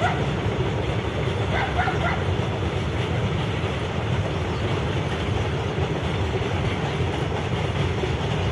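A freight train of covered boxcars rolling past, a steady rumble of wagons on the rails.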